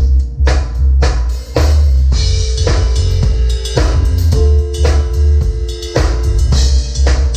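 A band playing: a drum kit with steady beats and cymbals, over heavy bass and held chords.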